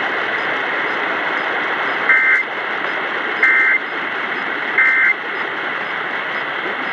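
Emergency Alert System end-of-message data tones over AM radio: three short identical screeching bursts about a second and a half apart, over steady radio hiss, signalling the end of the relayed tornado warning.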